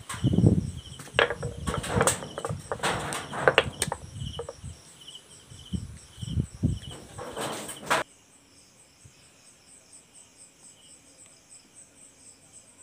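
Irregular knocks, thumps and footsteps from someone walking about a kitchen with a phone in hand, over insects chirping in a steady repeating rhythm about twice a second. About eight seconds in, the knocking stops abruptly and only the faint insect chirps remain.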